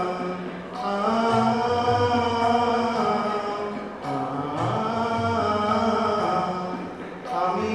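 A group of voices singing a Bengali song in long held notes, in phrases of about three seconds with short breaks between them.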